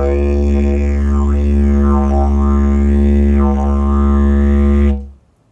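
Didgeridoo drone played with tightened lips, one steady deep note with its upper tones sweeping up and down in a wah-like way several times as the mouth shapes the sound. It fades out about five seconds in.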